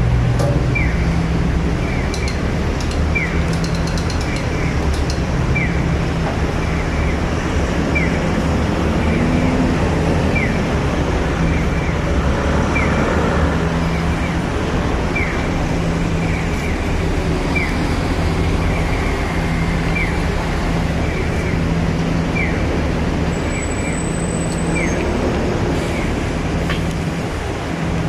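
Street traffic running steadily, with short, high, falling electronic chirps repeating about once a second from a pedestrian crossing signal.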